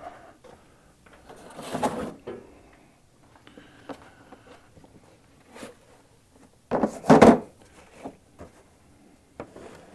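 Equipment being handled at a workbench: scattered knocks and clicks and a few scraping, sliding sounds, the loudest a double slide about seven seconds in.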